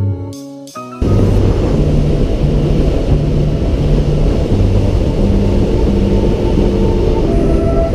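Loud, steady wind buffeting and road rumble on a camera mounted outside a Jeep Wrangler driving down a paved highway. It cuts in suddenly about a second in, after a second of guitar music, and soft background music carries on underneath.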